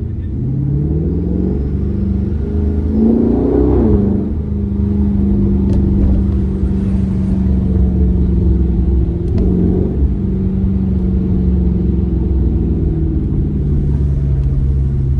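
A car's engine accelerating, its pitch climbing for the first few seconds. It drops sharply about four seconds in, as at a gear change, then holds a steady drone under load and steps down lower near the end.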